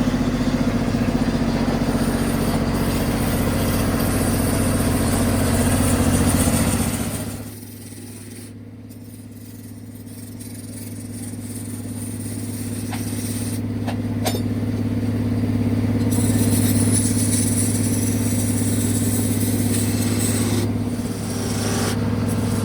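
A machine's motor running with a steady hum. It drops sharply about seven seconds in, then builds back up.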